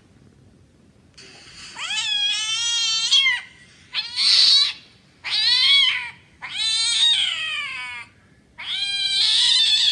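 Domestic cat meowing over and over: about five long, drawn-out meows with short gaps between them, starting about a second in.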